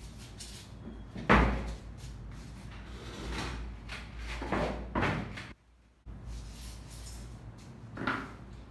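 A sharp thump about a second in, then several swishing, rustling sweeps as a large sheet of paper is laid down and smoothed by hand on a stainless steel table.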